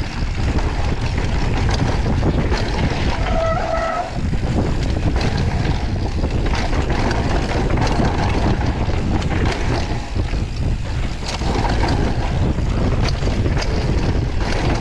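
Wind rushing over the camera microphone with the rumble and rattle of a downhill mountain bike's tyres and frame on a dirt trail at speed. A brief squeal is heard about three seconds in.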